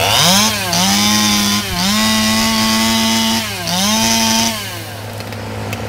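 Two-stroke chainsaw running at full throttle, its high whine dipping in pitch twice and recovering before it drops back about four and a half seconds in. A steady low hum runs underneath.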